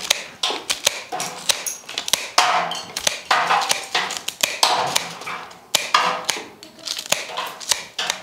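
Floral scissors cutting the thick, hard stem ends of a hand-tied bouquet: a run of sharp snips, with stems and foliage rustling between them.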